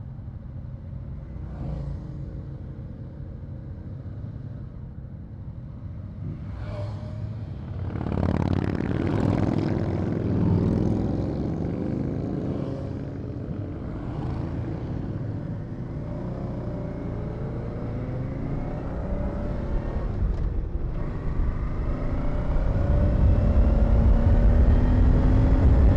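A motorcycle engine idling low, then other motorcycles passing close by about eight seconds in. The Honda Deauville's twin-cylinder engine then pulls away and accelerates, rising in pitch through the gears and growing louder near the end.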